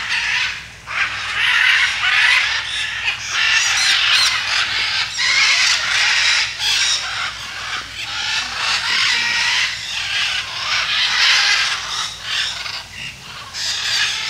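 A flock of macaws squawking loudly, many harsh calls overlapping almost without a break.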